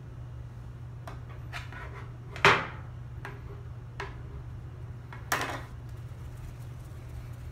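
Light knocks and clatter from handling a metal baking sheet and a plastic container while dough balls are set down: a few small taps, a louder ringing knock about two and a half seconds in, and a short rattle a little after five seconds. A steady low hum runs underneath.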